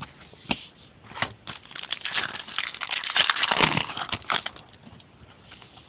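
Trading cards being handled and slid one past another in the hand, a run of quick rustles and clicks that is busiest in the middle.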